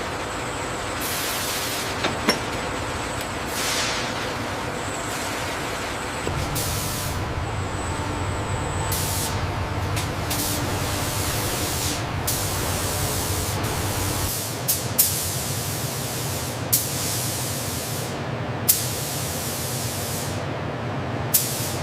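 Factory noise: a steady low hum with repeated bursts of high hiss that start and stop every second or two, and a few sharp clicks.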